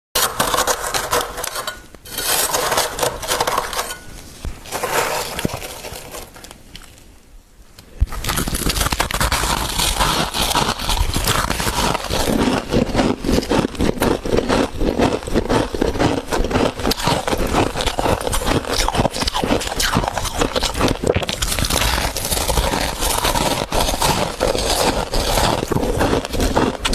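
Freezer frost being scraped and crunched in the mouth: dense, crisp crackling crunches (嘎嘣脆, 'crunchy'). It is patchier and quieter for a few seconds early on, then crunches steadily from about eight seconds in.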